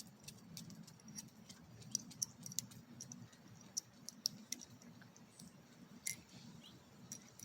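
Faint, scattered clicks and light taps from a small titanium pry bar multi-tool and its driver bits being handled, over a low steady hum.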